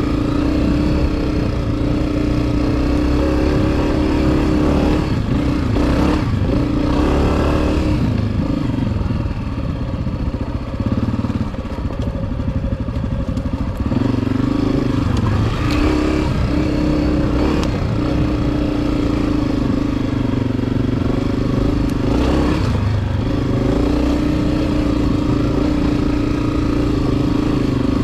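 Honda CRF250F's single-cylinder four-stroke engine running steadily under throttle on a dirt trail. The engine eases off and runs lower from about eight to fourteen seconds in, then picks back up. Some clatter comes through with it.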